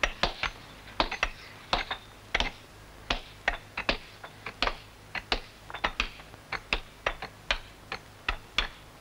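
Stonemasons' hammers striking chisels on sandstone: sharp, irregular knocks, about two or three a second, some in quick pairs.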